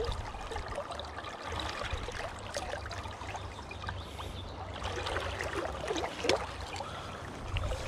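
River water flowing and rippling, with a steady low rumble underneath. Faint scattered clicks and rustles come from hands handling the lure, line and spinning reel.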